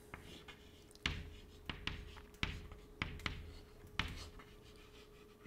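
Chalk writing on a chalkboard: several sharp taps and short scratches as letters are written, with a faint steady hum underneath.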